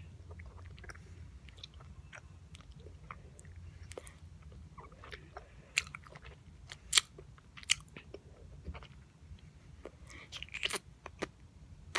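Close-up mouth sounds of a boy chewing bubble gum: soft, wet smacking clicks, scattered and irregular, with a few louder smacks and a short cluster near the end as he works the gum with his tongue to try to blow a bubble.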